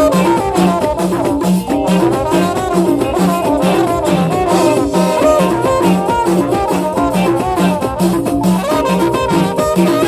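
Amazigh ribab fusion band playing: a wandering lead melody over a steady, repeating low beat.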